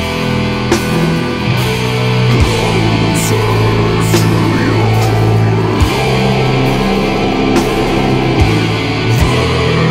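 Funeral doom metal: heavy distorted guitars holding long, low chords, with slow drum hits about every one and a half to two seconds.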